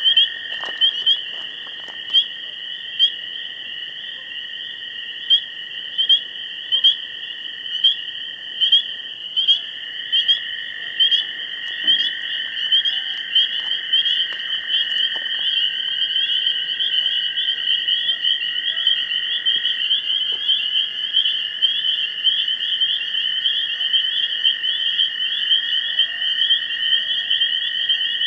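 Chorus of frogs and insects: a steady high-pitched trill under repeated calls about once a second, which come faster and run together after about fifteen seconds.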